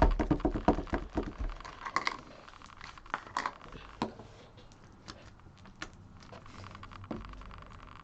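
Sticky foam-bead slime being squished and poked by hand: a quick run of wet clicks and crackles, densest in the first couple of seconds, then sparser.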